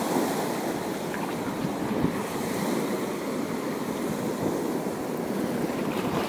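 Waves washing steadily, with wind buffeting the microphone.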